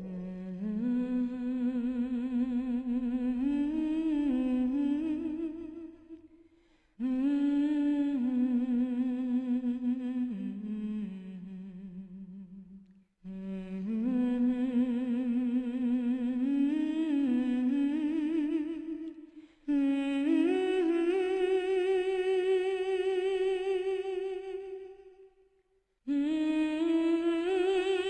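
A single voice humming a slow, wordless melody with no accompaniment, in long phrases of about six seconds with brief breaks between them, with vibrato on the held notes.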